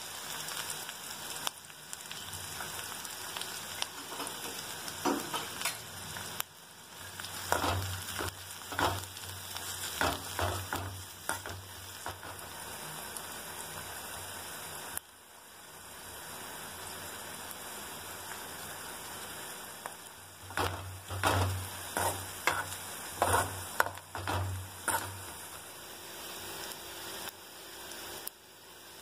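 Chopped onions and green chillies sizzling in hot oil in an aluminium kadai, with runs of a spoon scraping and stirring against the pan about eight seconds in and again around twenty seconds in.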